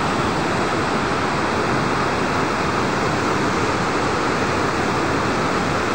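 Steady, loud rush of a fast whitewater mountain stream pouring over boulders.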